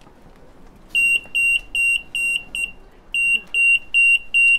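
Store anti-theft security gate alarm beeping: a high-pitched beep about four times a second, in runs of six or so with short pauses between them, starting about a second in. This is the signal of a tagged item being carried through the exit gate.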